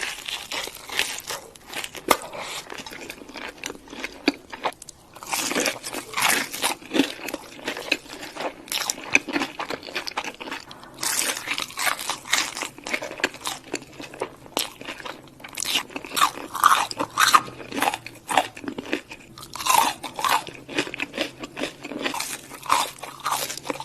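Close-miked eating of crisp fried fast food: a steady run of crunchy bites and chewing, irregular and dense.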